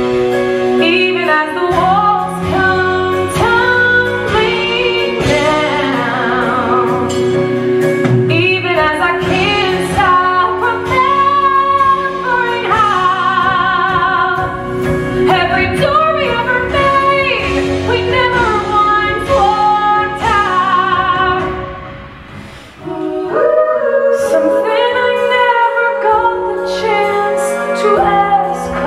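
A woman singing a show tune with vibrato over instrumental accompaniment. The music falls away briefly about two-thirds of the way through, then comes back in fuller.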